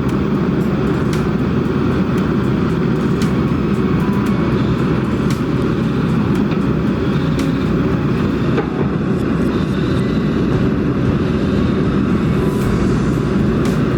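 Kobelco SK200 excavator's diesel engine running steadily under working load, with scattered short clicks and ticks over it.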